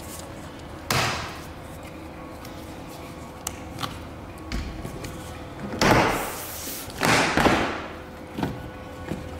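Plastic car door trim being pried loose and pulled off: a sharp snap about a second in, two louder scraping rasps around six and seven seconds, and a couple of light clicks near the end.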